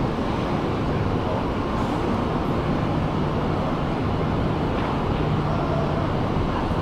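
Steady low drone of a cruise ship's machinery while the ship docks, with a low hum that fades for a few seconds and returns near the end.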